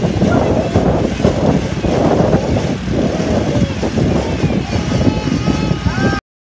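Pontoon boat under way: a steady outboard motor and rushing air and water noise, which cut off suddenly near the end.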